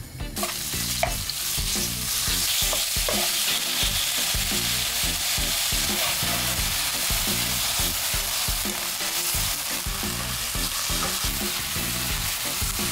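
Jjambbong ingredients sizzling loudly in hot oil in a pan while being stirred, with a steady frying hiss and irregular scraping and knocking of the utensil against the pan.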